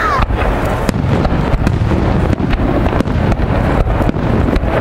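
Aerial fireworks shells bursting in a display, a string of sharp bangs and crackles in quick succession over a heavy rumble of wind on the microphone.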